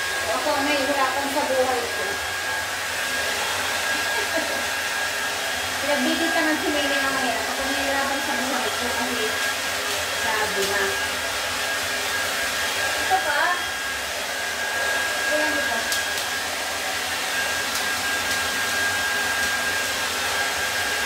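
Handheld hair dryer blowing steadily with a high whine as it dries a wet cat's fur.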